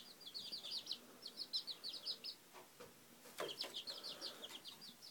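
Young mini bantam chickens peeping: rapid runs of short, high-pitched cheeps in two bursts with a short gap and a few faint knocks in the middle.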